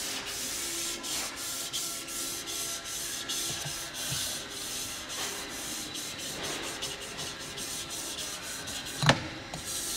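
Foam applicator tip of a Toko Express Maxi liquid wax bottle rubbing wax across a ski base in repeated short strokes, with a sharp knock about nine seconds in.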